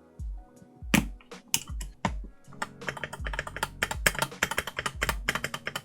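Plastic keycaps clicking onto the switches of a mechanical keyboard, a few separate clicks at first, then a fast run of clicks from about halfway. Background music with a steady bass beat underneath.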